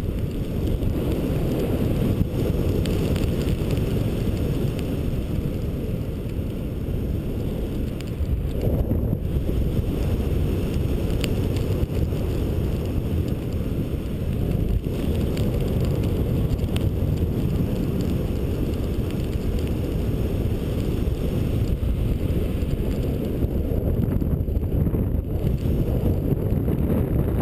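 Steady airflow rushing over a GoPro's microphone in paragliding flight: an even, low wind rumble.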